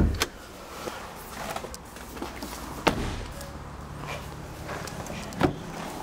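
A few sharp knocks and clicks in a Ford Kuga's cabin, with a small electric motor humming steadily for about two seconds between the second and third knock.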